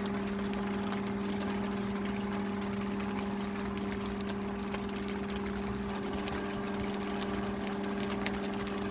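Electric fan running steadily, blowing on barbecue charcoal to get it burning quickly, with a constant motor hum.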